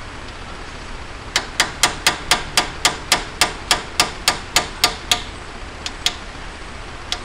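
A hammer tapping an old wheel bearing used as a driver, seating a new axle seal into a Ford 8.8 rear axle housing, metal on metal. About a second in comes a quick, even run of about fifteen light taps, roughly four a second, followed by a few scattered taps near the end.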